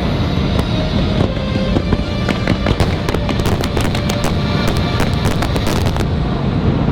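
Fireworks show: rapid crackling bursts over loud music from the show's soundtrack, with a heavy low rumble underneath. The crackles come thickest in the middle and stop about a second before the end, leaving the music.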